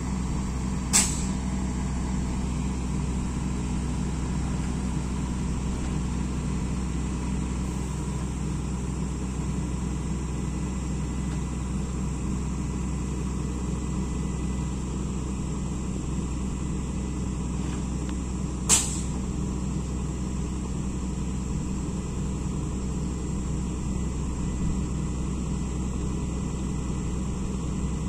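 An engine running steadily at idle, a low even hum, with two short sharp knocks: one about a second in and one about two-thirds of the way through.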